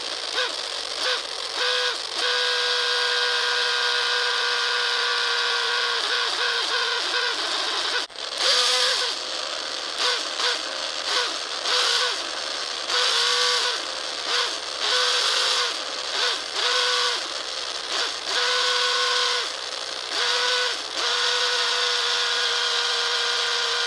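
A continuous mechanical squeak from a VAG car's drivetrain: a steady squealing whine with a hiss over it, broken by short warbling chirps about once a second. It sounds like a squeaking needle bearing in a DSG7 dual-clutch gearbox or its flywheel.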